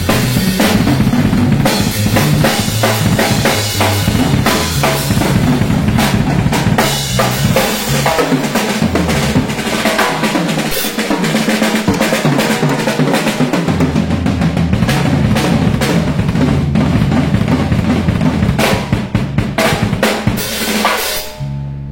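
Music driven by a busy drum kit, with a fast run of kick, snare and rimshot hits over a bass line that steps between low notes.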